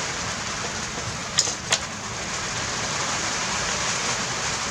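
Steady hiss of rain from a storm, with two sharp clicks close together about a second and a half in.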